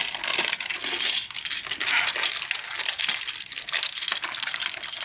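Loose plastic SA keycaps clattering against one another in a continuous jumble of small clicks and clinks.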